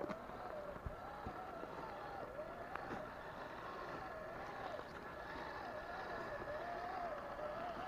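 Electric motor and gear drivetrain of scale RC crawler trucks whining, the pitch wavering up and down as the throttle changes, with a few faint ticks.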